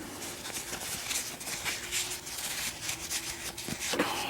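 Soft rubbing with faint, irregular small clicks: a grimy vintage American 700 padlock being handled and wiped down.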